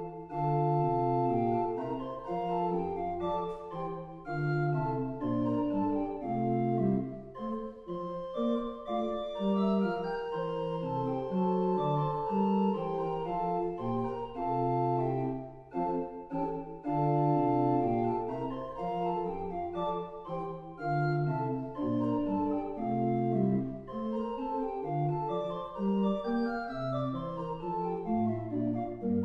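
Pipe organ playing a piece in several voices: a higher line moves over a bass line whose notes change about once a second.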